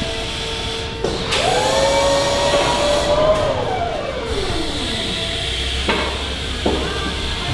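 A motor spins up about a second in, runs at a steady pitch for about two seconds, then winds down in a long falling whine; two short sharp blips follow near the end.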